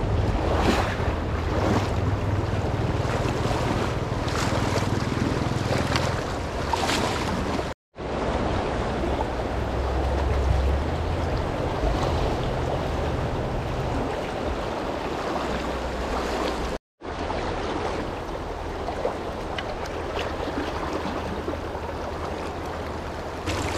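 Rushing river water as a steady wash, with wind rumbling on the microphone. The sound drops out briefly twice, about 8 and 17 seconds in.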